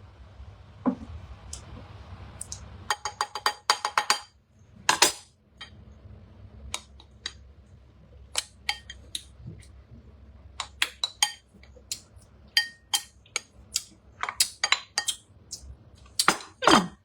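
Kitchen utensils and containers clinking and tapping: a quick run of ringing clinks about three seconds in, then scattered clinks and taps, with a louder scrape near the end.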